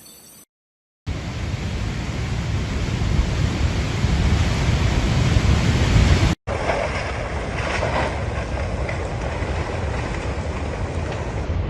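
Loud, steady rush of floodwater mixed with wind noise on the microphone, in two clips with a brief break about six seconds in.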